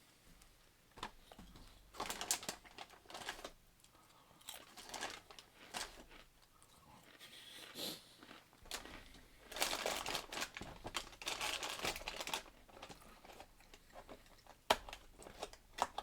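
A person biting into and chewing ridged Cheez-It Crunch white cheddar crackers: irregular bouts of crunching, the loudest stretch about ten seconds in.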